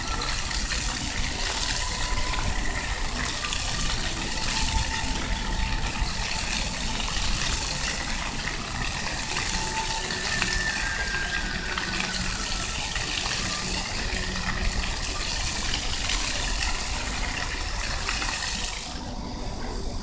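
Floor fountain's water jets spraying up from nozzles in the paving and splashing back onto the wet stone, a steady rushing hiss. The spray cuts off about a second before the end as the jets stop.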